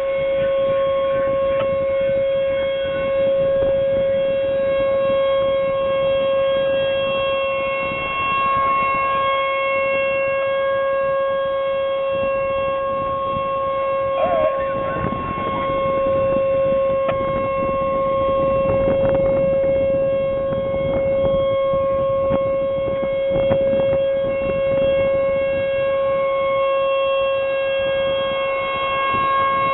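Outdoor tornado warning siren sounding a long steady tone, the sign of a tornado warning in effect. The pitch holds steady while the loudness swells and eases slightly every few seconds, over a rushing noise.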